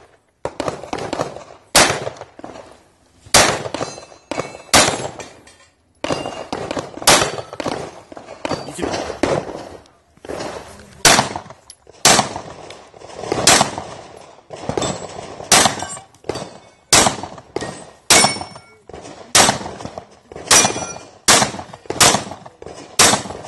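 A string of pistol shots fired at steel plate targets, about one shot a second with a few quicker pairs, with the steel plates ringing after hits.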